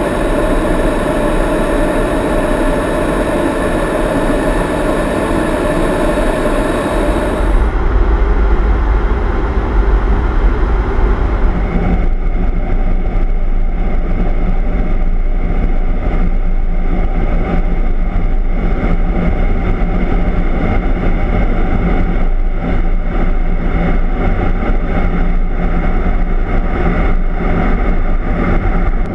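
Steady jet aircraft noise heard from inside the aircraft in flight: a continuous rush of engines and airflow. About 8 seconds in, the high hiss drops away and a deeper rumble takes over. The sound changes again a few seconds later.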